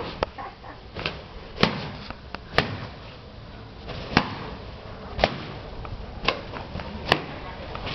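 A series of sharp knocks, unevenly spaced at roughly one a second.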